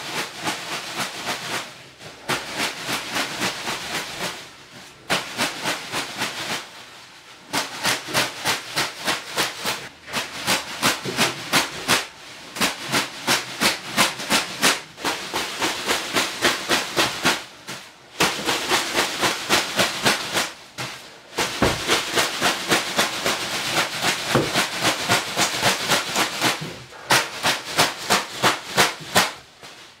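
Bath broom (venik) strokes in a steam room: fast runs of swishing, slapping leafy strokes, about four a second, in bursts of a few seconds with short pauses between.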